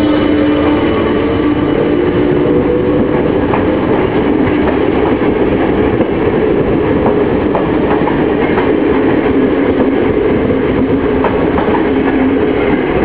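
ČD class 163 electric locomotive accelerating away, its electric drive giving a whine that rises slightly in pitch and fades within the first few seconds. Then a train of double-deck passenger coaches rolls past with a steady rumble and scattered clicks of wheels over rail joints.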